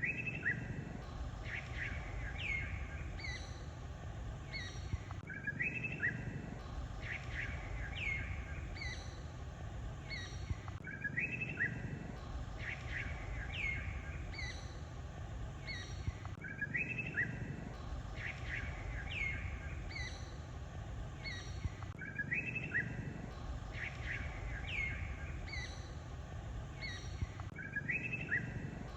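Small birds chirping, short calls that fall quickly in pitch, over a low rumble. The same few seconds of chirps repeat about every five and a half seconds.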